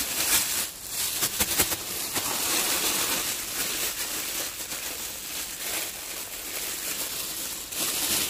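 Thin plastic bag crinkling and rustling as it is squeezed and shaken by hand, working pieces of belly pork around inside it to coat them in sweet chilli sauce.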